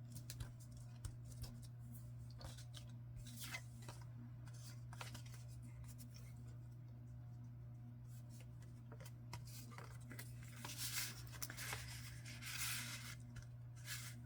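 Paper being handled at a craft table: scattered small clicks and rustles, then longer rustling or tearing sounds from about ten seconds in, over a steady low hum.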